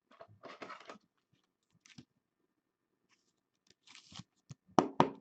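Trading cards being handled at a table: short rustles and scrapes of card stock and plastic sleeves sliding, with a few sharper clicks near the end.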